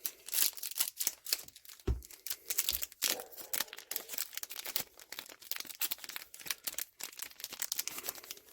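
Trading-card booster pack wrapper crinkling and tearing as it is pulled open by hand, a dense irregular crackle.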